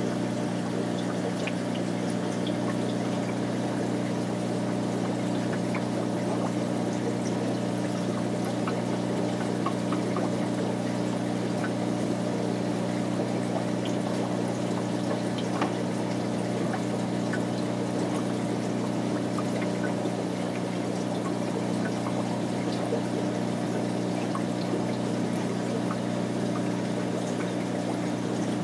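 Aquarium water circulation running steadily: a constant trickle of water over a low steady hum, with faint scattered ticks.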